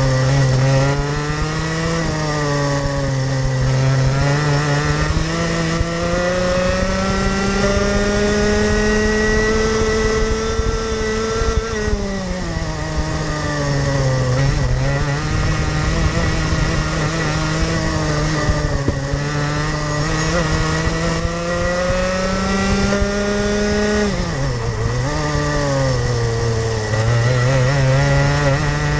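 Rotax Max 125cc single-cylinder two-stroke kart engine at racing speed, revving up along the straights and dropping in pitch when braking into corners. The pitch climbs slowly over the first ten seconds, falls about twelve seconds in, rises again, and dips sharply twice near the end before climbing once more.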